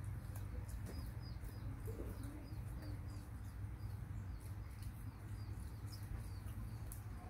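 A small bird chirping in the background: short, high, falling chirps repeating about three times a second over a steady low hum.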